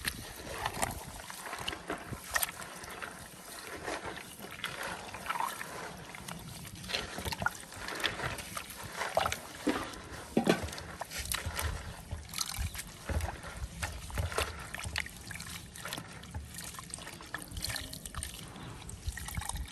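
Irregular wet sloshing and trickling of liquid, with scattered small knocks and clicks.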